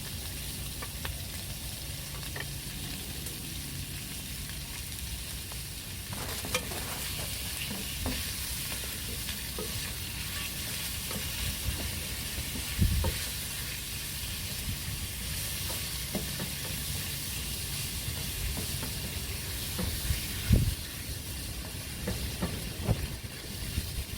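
Beef slices sizzling and frying in hot sesame oil in a pan while being stirred, a steady hiss with a few knocks against the pan, two of them louder.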